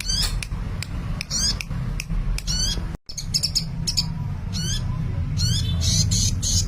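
Sunbird singing energetically: rapid high-pitched chirps and quick twittering, warbled phrases repeated over and over, with a steady low hum underneath.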